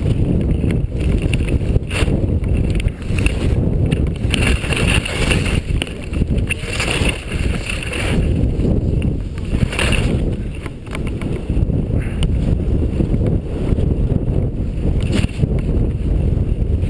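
Wind buffeting a helmet-mounted action camera's microphone during a downhill ski run, a steady low rumble, with skis scraping and hissing on packed snow in surges, the strongest about seven and ten seconds in.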